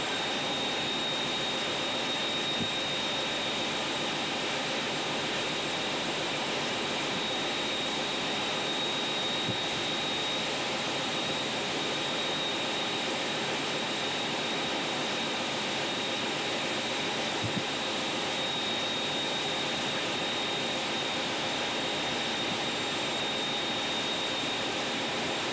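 Hastings diesel-electric multiple unit (Class 203) running at speed, heard from the front driving cab: a steady, even rush of running noise with a thin high whine over it.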